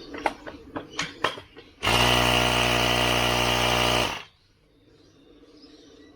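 A few clicks and knocks, then a small electric power tool's motor running steadily for about two seconds before stopping abruptly.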